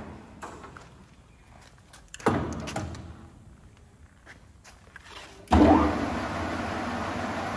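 Victor 660 x 3000 centre lathe: its running noise dies away at the start, a few light clicks and a clunk follow about two seconds in, then the spindle starts with a sudden loud surge about five and a half seconds in and the chuck keeps running steadily.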